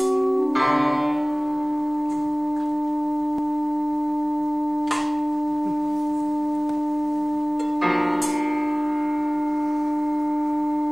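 Live experimental music accompaniment: long, steady held tones sounding together as a drone chord. Sharp struck accents about half a second in, near five seconds, and twice near eight seconds, each bringing in a new cluster of tones.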